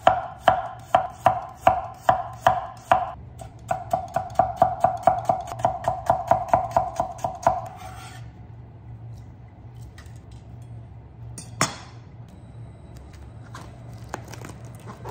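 Kitchen knife slicing a carrot on a wooden cutting board: evenly spaced chops, about three a second, then a faster run of about four a second that stops about eight seconds in. After that, quieter handling with a single sharp knock a few seconds later, over a faint low hum.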